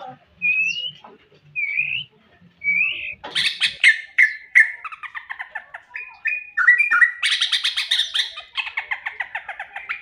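Caged songbird singing: a few short whistled notes, then from about three seconds in a loud, fast run of chattering and whistled notes.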